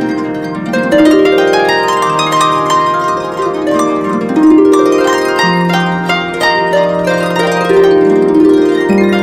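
Background music: plucked harp-like strings playing rising and falling runs of notes over held low notes.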